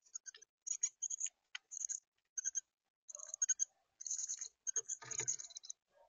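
Northern cardinals at a feeder tray of sunflower seeds: short clusters of sharp, high clicks and ticks, several a second, with a heavier knock about five seconds in.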